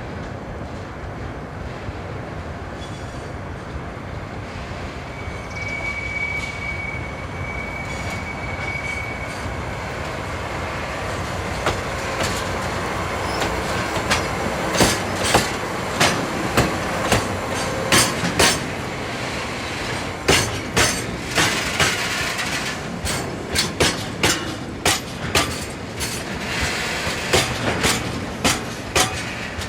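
Diesel-hauled freight train rolling through, its wagon wheels clacking over rail joints, the clacks coming faster and closer together from about halfway. A thin wheel squeal sounds for a few seconds near the start over a steady rumble.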